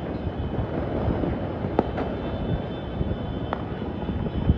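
Scattered distant firecracker pops and bangs over a steady low city rumble: a couple of sharp cracks about two seconds in, another a little later, and a deeper thump near the end.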